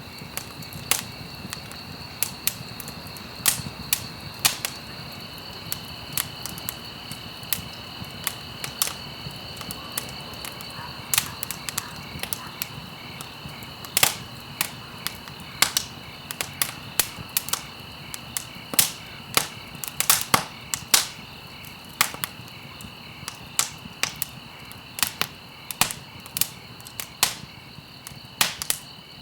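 Campfire crackling: burning wood and stalks giving irregular sharp pops and snaps, a few a second, over a low hiss, with a steady high-pitched tone running underneath.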